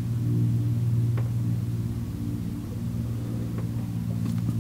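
Steady low hum of an idling vehicle, heard from inside its cabin, with a few faint ticks.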